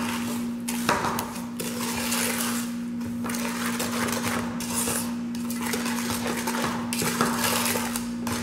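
Spoon scraping and knocking against an aluminium pot in repeated strokes as a thick mix of egg whites and sugar is stirred, over a steady hum.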